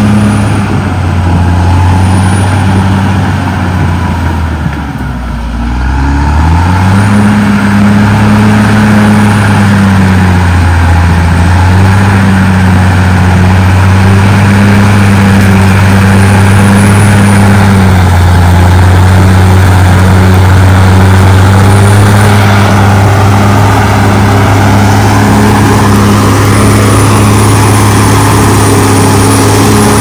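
Caterpillar D6R XL bulldozer's diesel engine running steadily under load as the blade pushes a pile of soil. About five seconds in, the engine speed drops sharply and climbs back up, then holds steady with smaller dips later.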